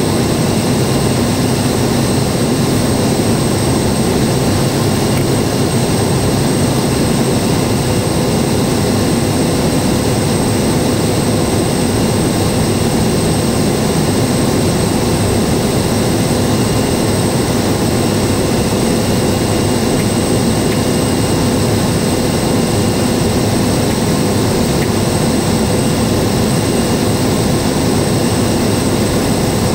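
Kodiak 100's single Pratt & Whitney PT6A turboprop engine and propeller heard inside the cockpit in flight: a loud, steady drone with a constant high whine over it.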